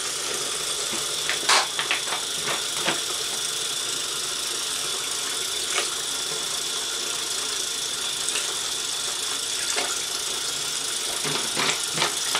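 Bathroom faucet running hot water steadily into a plastic tub full of empty brass cartridge cases, with a few short clicks and knocks scattered through it.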